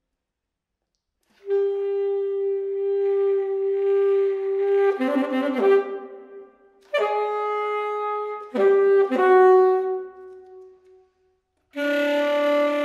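Unaccompanied alto saxophone playing slow phrases: a long held note, then shorter notes, each phrase separated by a brief silence, with a loud new held note starting near the end.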